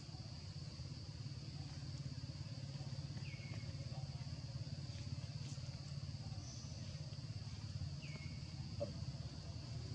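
Faint forest ambience: a steady high-pitched insect drone over a low rumble, with a short call that drops in pitch heard twice, about three seconds in and again near eight seconds.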